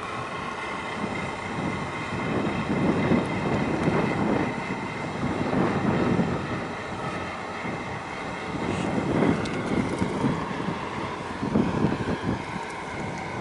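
Wind buffeting the microphone, swelling and easing every second or two, over the low rumble of a large container ship and its harbour tug moving through the water.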